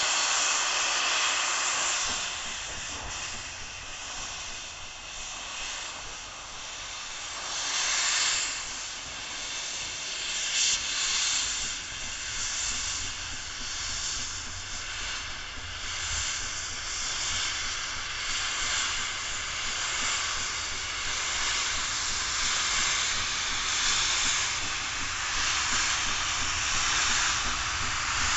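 Steam locomotives venting steam with a steady, loud hiss that swells and eases; the steam is escaping low at the front by the cylinders of LMS Princess Coronation Pacific 46233.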